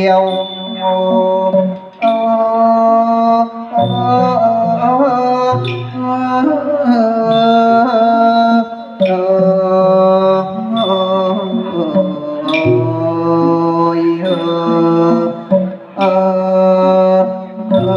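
Thai Mon piphat ensemble playing funeral music through microphones and an amplifier: a long, wavering melody line over khong mon gong circles and sustained low tones, with a sharp struck accent about every three and a half seconds.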